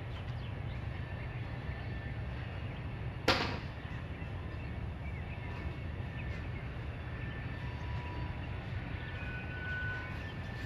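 A single sharp knock about three seconds in, ringing briefly, over a steady low rumble.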